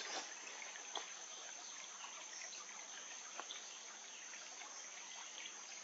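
Faint outdoor ambience: a steady high insect drone over the quiet trickle of a shallow stream, with a couple of small clicks.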